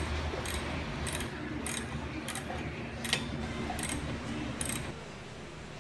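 A series of sharp clicks, about eight, a little under two a second, that stop just before the end. A steady low hum runs underneath.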